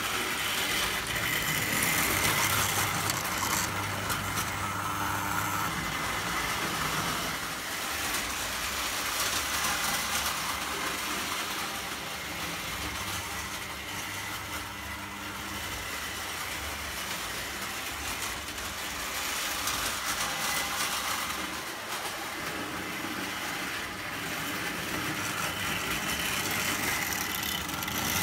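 Lionel O gauge toy train running on tinplate track, with a steady motor hum and the rumble of wheels on the rails. Louder at the start and near the end, quieter in the middle.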